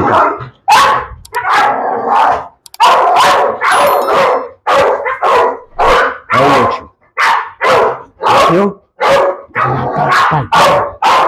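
Pit bull barking over and over, loud single barks at about one and a half a second, without a break.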